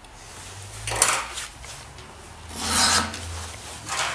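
A round chainsaw file rasping through a Husqvarna roller file guide across a chain's cutter tooth, sharpening it. There are three strokes; the middle one is the longest and loudest.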